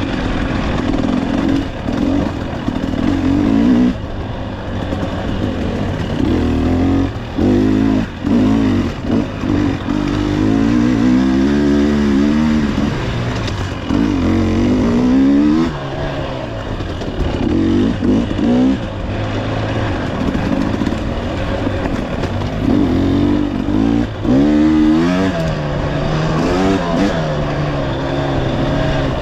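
Dirt bike engine revving up and down over and over as it picks its way over rocks, roots and ledges, with rattling from the bike.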